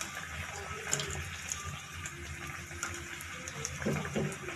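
Samosas deep-frying in hot oil in a kadhai: a steady sizzle with scattered sharp crackles and pops.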